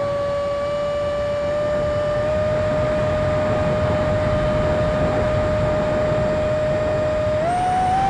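Habu 50mm electric ducted fan jet in flight, its fan whining at a steady high pitch over a rush of air. The pitch steps up slightly about two seconds in and rises again just before the end.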